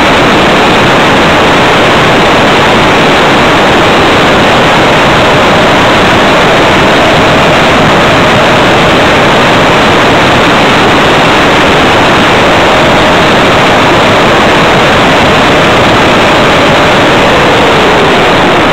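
Radio-controlled Tiger Moth model biplane in flight, its motor and the rushing air picked up by a camera mounted on the plane. The noise is loud and steady, with a faint whine that slides down in pitch near the end.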